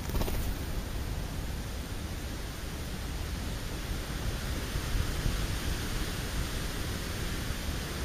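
Steady rushing noise, heaviest and most uneven in the low rumble, typical of wind buffeting an outdoor microphone. There is a brief crackle right at the start.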